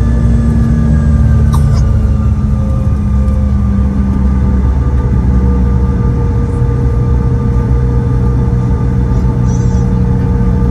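Cabin noise of a Bombardier CRJ-900 taxiing, its rear-mounted GE CF34 turbofans running at low taxi power: a steady, loud rumble and drone with a few steady whining tones. One tone sinks slightly in pitch in the first few seconds, and another comes in about halfway through.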